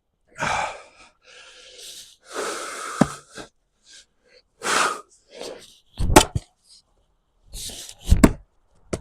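Heavy breaths and sharp exhales of a man splitting wood, broken by an axe striking a log several times; the hardest blows land about six and eight seconds in.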